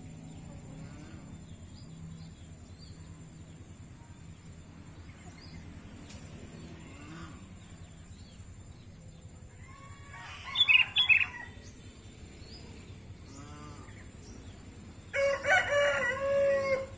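A short burst of small-bird chirps about ten seconds in, then a rooster crowing for about a second and a half near the end, with faint bird chirps between.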